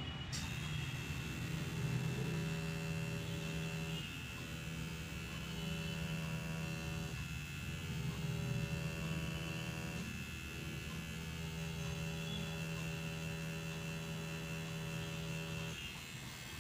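Tattoo machine buzzing steadily while filling ink into practice artificial skin, the hum dipping briefly a few times.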